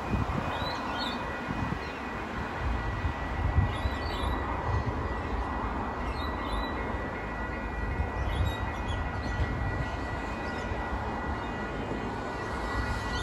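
Outdoor ambience with uneven low rumbling gusts of wind on the microphone, small birds chirping every few seconds, and a faint steady high-pitched tone.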